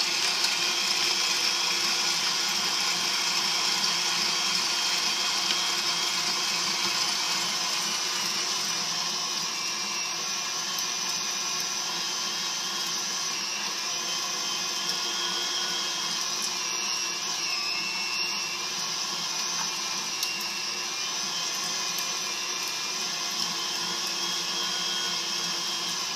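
KitchenAid stand mixer motor running at speed 6 with a food grinder attachment, a steady motor whine and gear hum as it grinds cubes of raw beef. The pitch dips briefly about two-thirds of the way through.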